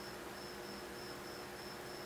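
Quiet background room tone: a faint steady hum with a thin high-pitched whine that pulses on and off.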